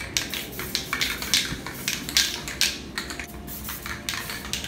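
Aerosol spray-paint can fired in quick, short hissing bursts, two or three a second at an uneven rhythm.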